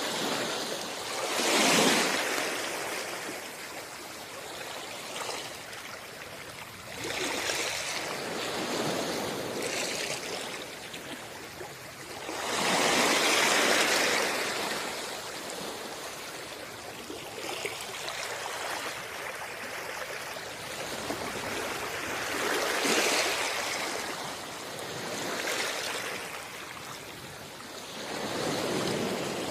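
Sea waves washing onto a shore, the surf swelling and falling back every few seconds, with the longest and loudest surge about halfway through.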